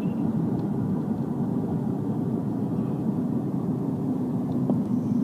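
Steady road and engine noise inside a moving car's cabin, a low even rumble with no sudden events.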